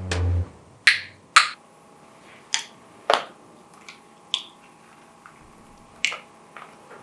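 Music cuts off just after the start, followed by about six sharp clicks at uneven intervals, the first few in pairs about half a second apart.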